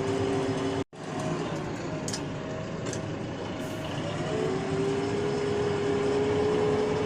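Steady running noise inside the closed cab of a JCB 3DX backhoe loader: the diesel engine with the cab blower fan on. The sound cuts out for a moment about a second in.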